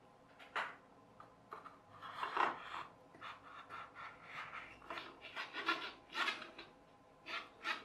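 Wooden skewer axle and cardboard box handled together, giving a series of short, irregular rubbing and scraping sounds. A longer, louder scrape comes about two seconds in.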